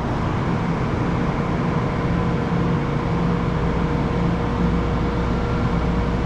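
Steady rumble and hum of a train standing at a terminal platform, with a few held tones over an even noise.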